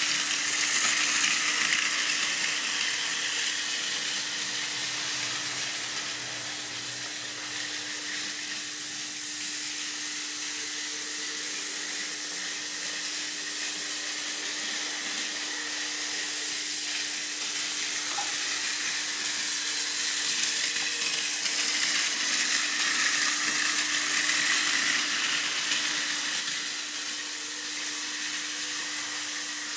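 Battery-powered Plarail toy train, a Hitachi E653 series model, running on plastic track: the steady whir of its small motor and gearbox with the hiss of wheels on the rails, over a steady low hum. It gets louder near the start and again past the middle as the train runs close by.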